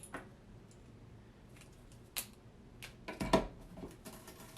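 Clicks and knocks from tools and a plastic mop head being handled, with a sharp click about two seconds in and the loudest knock a second later.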